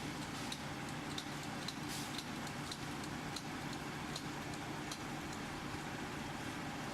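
An engine running steadily at a constant speed, with scattered light ticks over it.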